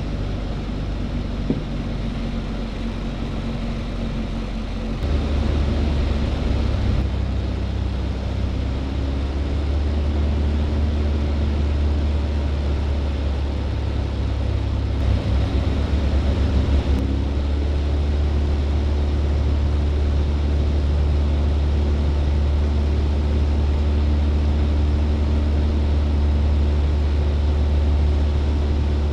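Vans RV light aircraft's piston engine and propeller droning steadily inside the cockpit during approach and landing; the drone steps up in level about five seconds in.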